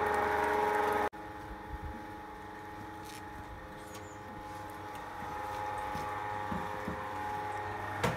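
Electric meat grinder's motor humming steadily, cut off abruptly about a second in. After it comes quieter background with a few light knocks.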